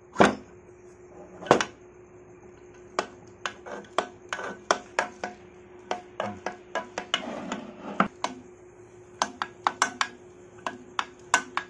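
Rajadoot motorcycle engine parts knocking and clinking against an aluminium crankcase half as they are fitted by hand: two loud knocks at the start, then a run of sharp metallic clicks, two or three a second.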